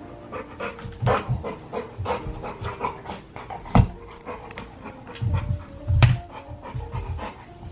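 A large pit bull panting while chewing a solid rubber ball toy, with a run of wet gnawing clicks and knocks of his teeth on the rubber; the heaviest knocks come about four and six seconds in.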